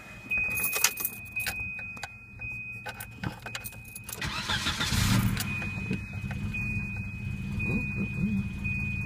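Volvo B230F four-cylinder engine idling, with sharp metallic clicks in the first few seconds as the IAC test clip and ground wire are handled, and a short hiss about four seconds in. With the idle air control test line grounded, the idle settles a little low.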